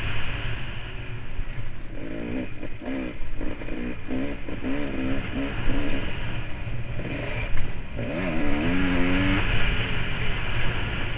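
Kawasaki KX500 two-stroke single-cylinder engine ridden hard, revving up and backing off again and again with the throttle. Its pitch climbs and drops several times, with one long climb about eight seconds in.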